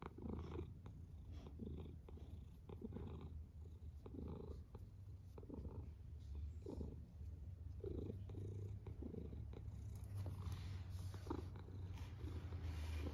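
Long-haired cat purring close up, a steady low rumble that swells about once a second with its breathing, a little louder near the end.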